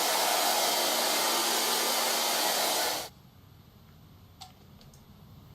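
Hair dryer blowing steadily, then cutting off abruptly about three seconds in, leaving a quiet background with a faint click.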